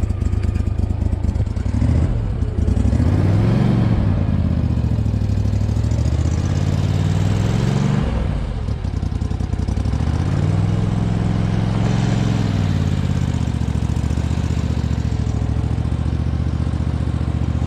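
Boat motor running, its pitch rising and falling several times as the throttle is opened and eased off.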